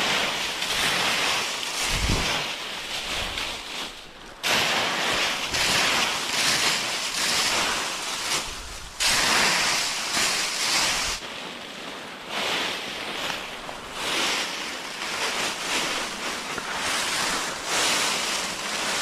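Dry fallen leaves rustling loudly as someone walks through a deep layer of them. The sound cuts off and starts again abruptly a few times.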